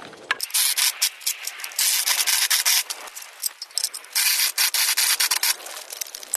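Step drill bit in a power drill grinding through the sheet steel of an electrical box to enlarge its knockout for a 3/4 inch fitting, in about four bursts of a second or so with short pauses between.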